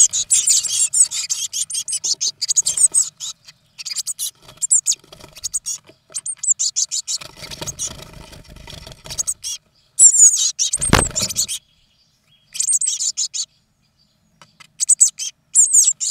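Blue tit nestlings in a nest box giving high, rapid begging calls in repeated bursts while an adult blue tit is among them. There is a single loud thump about eleven seconds in.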